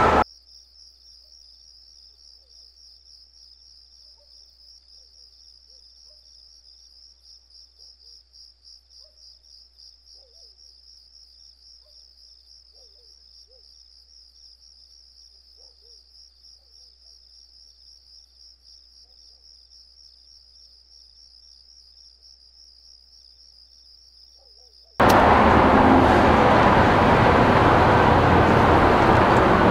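A faint, steady, high-pitched insect trill of crickets, pulsing rapidly, over a low hum. About 25 seconds in it cuts abruptly to loud, steady road-traffic noise.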